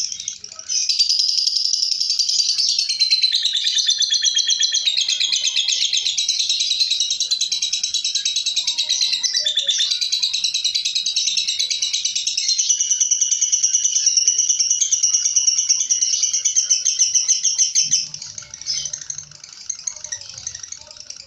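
Lovebird singing a long, rapid, continuous chattering trill. It starts about a second in, runs unbroken for about seventeen seconds, then drops to softer, broken chatter near the end.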